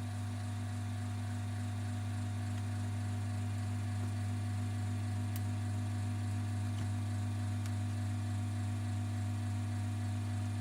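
A steady low electrical hum with a faint hiss, unchanging throughout, with two or three faint small clicks.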